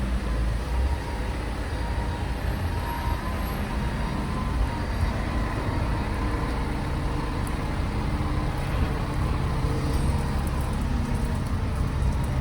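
Steady low rumble of motor vehicle engines and street traffic.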